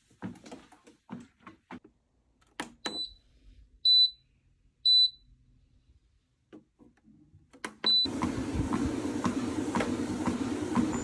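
SuperFit treadmill starting up: a few clicks and taps, then the console beeps three times about a second apart and once more about three seconds later, and the belt motor starts running with a steady hum and a regular knock.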